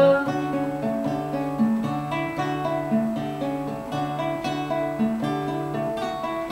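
Acoustic guitar playing an instrumental interlude of a song, picked and strummed in a steady rhythm over a repeating bass line, with no singing.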